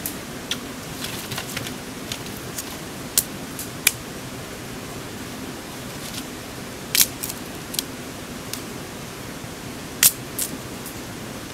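Dry sticks and twigs clicking and snapping as they are handled, broken and laid between stones, with a dozen or so sharp ticks, the loudest near the middle and about two-thirds through. A steady hiss of background noise runs beneath.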